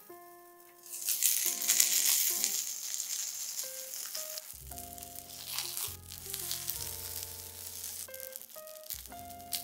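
Cheese-filled fried-tofu pouches sizzling in a frying pan. The sizzle starts about a second in, is loudest just after, and then settles to a steadier, softer frying sound. Gentle piano music plays over it.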